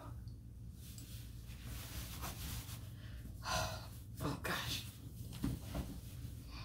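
Rustling of a cotton dress being pulled down over the body and its straps adjusted, with two louder brushes about three and a half and four and a half seconds in, over a low steady hum.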